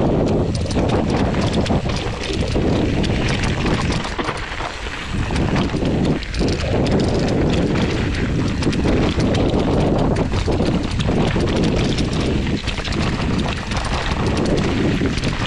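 Ragley hardtail mountain bike clattering and rattling as it descends rough, rocky dirt singletrack at speed, its tyres rolling over stones and ruts, with steady wind rumble on the microphone.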